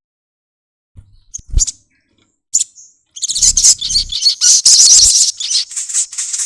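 Olive-backed sunbird singing. A few short high chirps come first, then about three seconds in a rapid, high-pitched trilling song that runs on, the 'nyepion' style that keepers prize. Several low thumps are heard alongside it.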